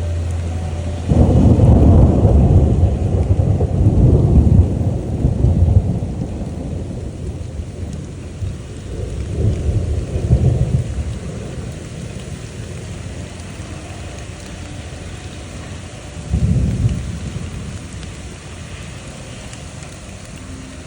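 Thunder rumbling over steady rain: a long, loud roll starts about a second in and dies away over several seconds, a weaker rumble follows midway, and a short one comes near the end. A low steady hum cuts off just as the first roll begins.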